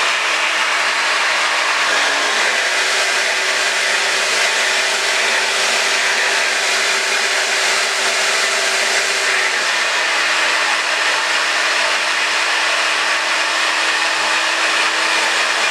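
Handheld hair dryer running steadily, a constant rush of blown air over a motor hum whose pitch shifts slightly a couple of times.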